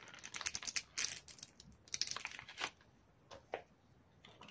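Soft plastic mayonnaise pouch crinkling and crackling as it is squeezed hard, the mayonnaise pushed out through its spout. The crackling is dense for about the first two and a half seconds, then thins to a few soft clicks.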